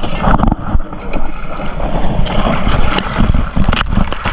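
Lake water sloshing and splashing close to the microphone as someone wades through it, with low rumbling wind buffeting and a few sharp splash cracks.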